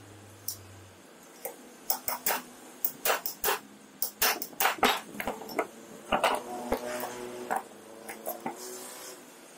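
Metal parts of a car starter motor knocking and clinking as they are handled and fitted together on a wooden workbench: an irregular run of sharp taps, with a short metallic ring after a few of the knocks about six to seven and a half seconds in.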